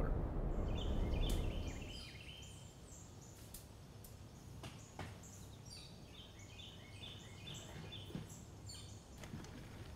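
A low road rumble from a moving truck fades out over the first couple of seconds, leaving quiet woodland where small birds chirp over and over in short high calls.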